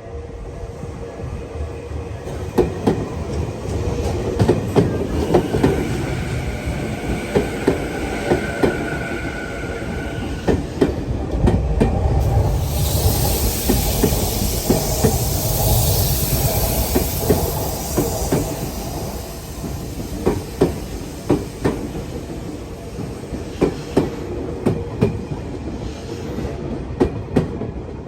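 Tokyu electric train passing over a level crossing, its wheels clacking over the rail joints in quick pairs above a steady rumble, with a whine for a few seconds and then a high hiss partway through.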